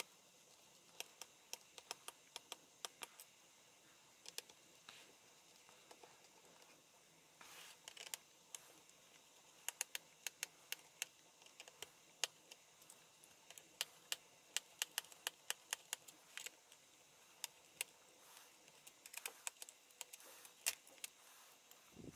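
Faint, scattered light clicks and ticks of a small screwdriver working screws out of a laptop's bottom case and access plate, in irregular clusters.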